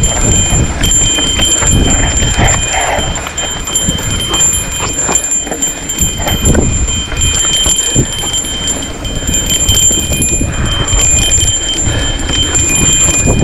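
Mountain bike riding fast down a dry dirt trail: wind rumble on the mic, tyres on loose dirt, and the bike's frame and components clattering and knocking over bumps.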